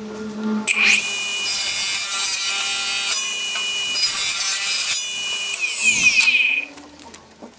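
Power tool's motor spins up about a second in, runs steadily with a loud high whine for about five seconds, then winds down with falling pitch.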